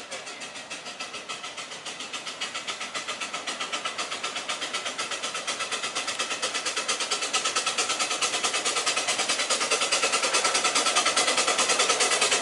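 Miniature train on a 7¼ inch gauge garden railway drawing closer, with a fast even beat of about five or six a second that grows steadily louder.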